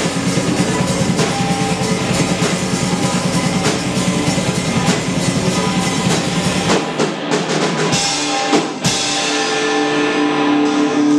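Live rock band with electric guitars and a drum kit, playing loudly. About seven seconds in, the drums and low end drop out and a couple of sharp final hits land. Held guitar notes then ring on, as at the close of a song.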